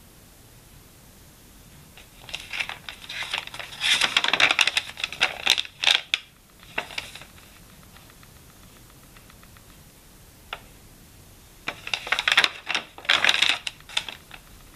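Paper pages of a notebook being turned by hand: a longer bout of crisp rustling and flapping a couple of seconds in, and a second, shorter bout near the end, with a single faint tick between them.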